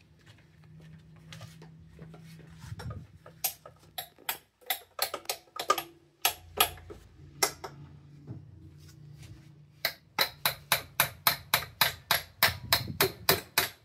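Mallet blows on a firmly seated coolant pipe in the engine bay, struck to knock it out of the way; the pipe stays stuck. A few scattered strikes come first, then a fast, even run of about four blows a second near the end, over a low steady hum.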